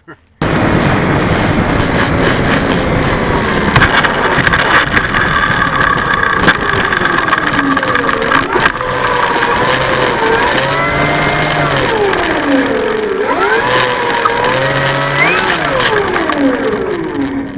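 A motor whine that rises and falls in pitch again and again, as if the throttle is being worked, over heavy wind noise buffeting the microphone.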